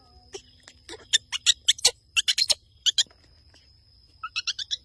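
Baby monkey giving a series of short, high chirps and squeaks, with a quicker run of chirps about four seconds in.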